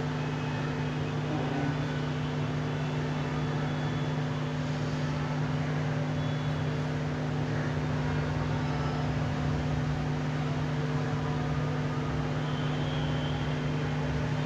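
Hot air rework gun blowing steadily on a phone circuit board to heat the solder while a diode is set in place: a constant hum under an even rush of air.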